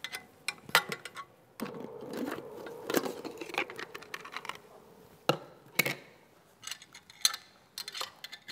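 Safety guards being taken off an Inoxpa Hyginox SEN-20 stainless steel pump by hand: sharp metal clicks and knocks, with a scraping slide of metal on metal lasting about three seconds near the start.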